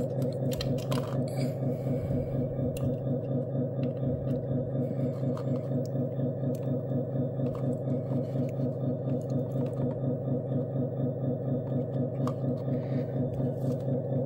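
A small motor running steadily, its hum pulsing about four times a second, with a few light metallic clicks from a hex driver working a small drain plug.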